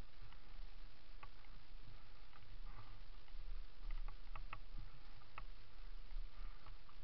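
Mountain bike rolling down a leaf-strewn dirt singletrack: a steady low rumble of riding noise with scattered sharp clicks and rattles, a quick cluster of them about four seconds in.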